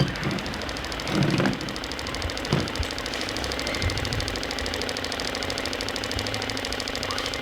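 RC construction machine running at a steady diesel-like idle with a fast, even ticking, with a few short clatters in the first three seconds.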